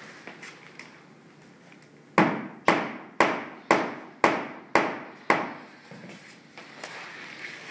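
Hammer blows on a hardwood floorboard being set in place: seven evenly spaced strikes about half a second apart.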